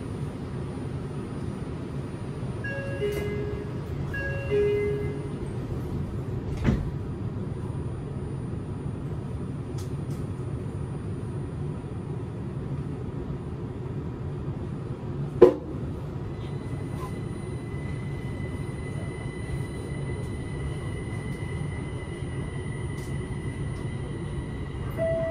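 Linimo 100-series maglev train running, a steady low hum heard from inside the front car. Two short pitched tones sound a few seconds in, and a sharp click comes about a quarter of the way through. A louder click comes just past halfway, after which a thin steady high tone sets in.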